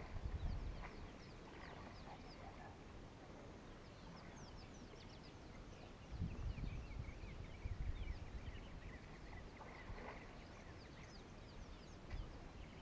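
Faint chorus of wild birds calling, many short, quick chirps throughout, over a low rumble that swells briefly near the start, about six seconds in and around ten seconds in.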